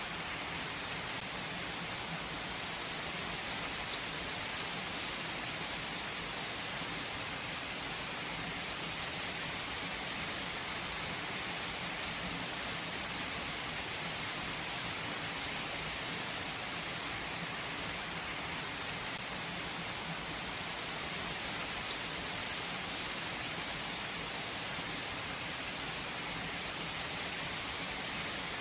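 Steady rainfall: an even hiss of rain with faint scattered drop ticks, unchanging throughout.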